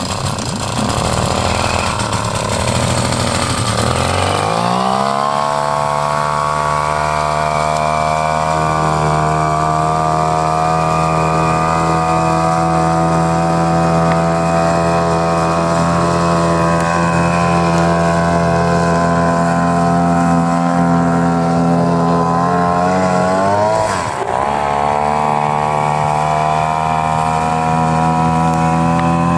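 Homemade outboard motor, a two-stroke Ural chainsaw engine on a Kama outboard's lower unit, running very loud. It runs low and rough for the first few seconds, revs up about four seconds in and holds a steady high pitch. Near the end it drops briefly and picks back up.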